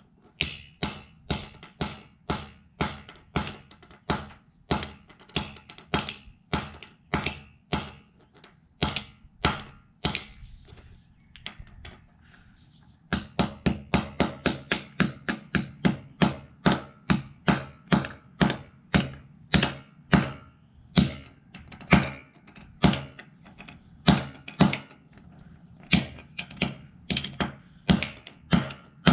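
Claw hammer striking a small plastic Bluetooth speaker on a concrete floor over and over, about two to three blows a second, with a break of about two seconds halfway through.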